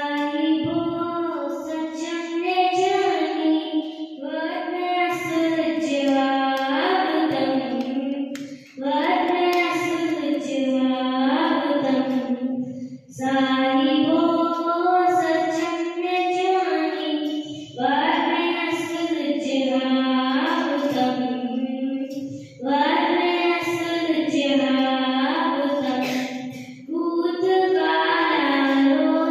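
A child singing solo, one voice holding melodic phrases of about four to five seconds with short pauses for breath between them.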